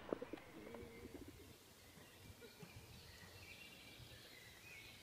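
Quiet park birdsong: a pigeon cooing low in the first second, after a short sharp click, then faint high chirps of small birds.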